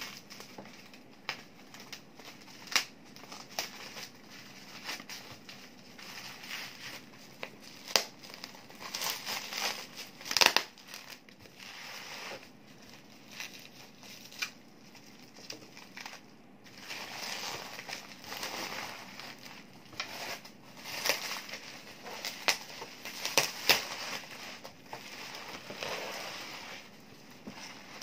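Plastic packaging crinkling and rustling as a cardboard box is unwrapped from bubble wrap and clear plastic film, with irregular sharp crackles and snaps, the loudest about ten seconds in.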